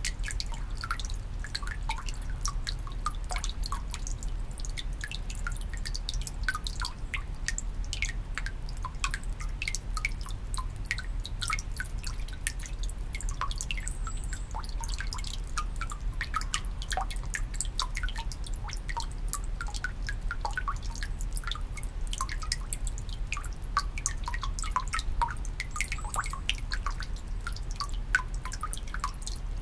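Water dripping and splashing into a Shinto shrine's temizuya water basin: many separate drops in quick, irregular succession, some bright and ringing, without a break.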